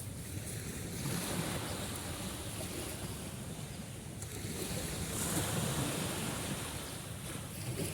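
Sea waves washing in, swelling about a second in and again around five seconds, with a low rumble of wind on the microphone.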